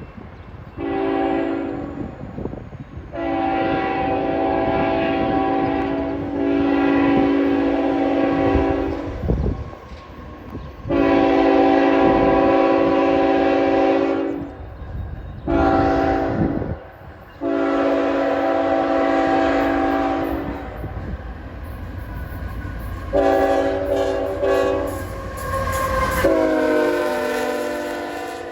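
Locomotive horn sounding a multi-note chord in a sequence of blasts, long ones with short ones between, in the pattern of a grade-crossing signal, over the steady rumble of the train. Near the end the horn drops in pitch as the locomotive passes.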